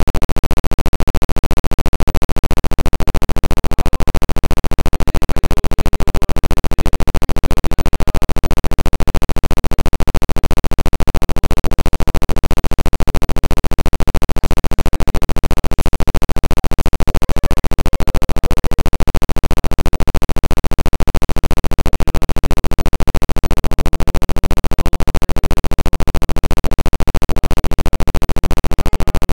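Background music with a steady, rapid pulse.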